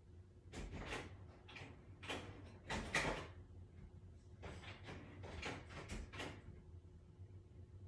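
A string of short, irregular scraping and knocking noises, the loudest about three seconds in, over a faint steady hum.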